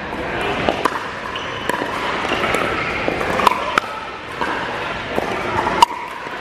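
Pickleball rally: paddles striking the plastic ball with sharp pocks every second or so, the loudest near the end, with fainter pocks from neighbouring courts in a large indoor hall.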